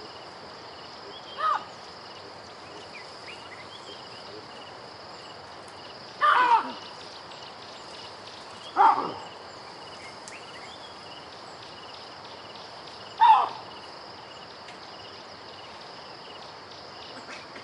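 Bird of prey calling: four loud, spaced-out screams, each falling steeply in pitch, the second one the longest. A steady high insect drone and faint chirps from small birds run underneath.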